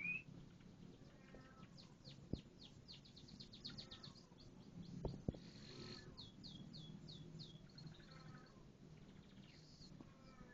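Domestic canary singing faintly: a run of rapid, high, repeated downward-sweeping chirps about two seconds in and another about six seconds in, with a few soft clicks between.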